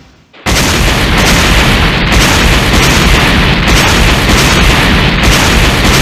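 Sound effect of a loud, sustained explosion-like rumble that cuts in suddenly about half a second in and holds steady without letting up.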